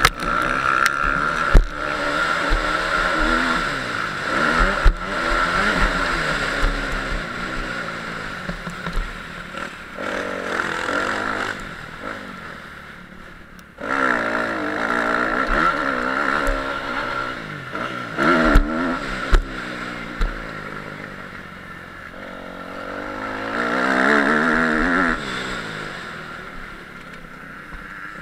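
Motocross bikes racing past, engines revving up and down as riders throttle and shift, each pass swelling and fading. The sound drops briefly just before the middle and comes back abruptly, and there are a few sharp knocks.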